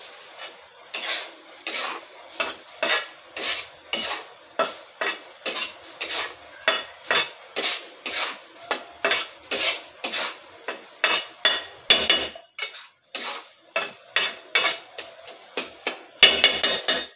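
Metal spatula scraping round a brass kadai in steady strokes, about two a second, as grated coconut and melted jaggery are stirred into a sweet pitha filling. A quick, louder flurry of scrapes comes near the end.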